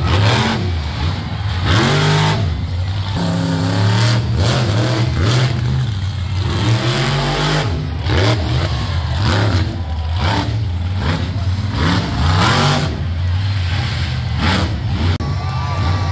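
A monster truck's engine revving hard again and again, its pitch rising and falling as the truck jumps over a row of crushed cars. Several sharp bangs stand out from it.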